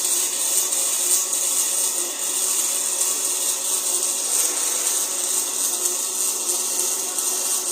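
Welding arc crackling and hissing steadily while an elbow is welded to a flange.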